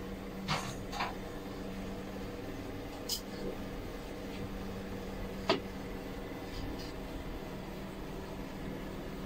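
Steady low room hum, broken by a few short sharp clicks, the loudest about five and a half seconds in.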